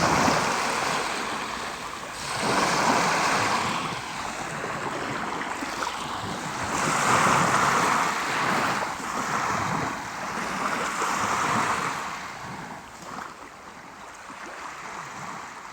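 Sea waves surging and washing ashore in repeated swells, each rising and falling over a few seconds. The surf dies away over the last few seconds.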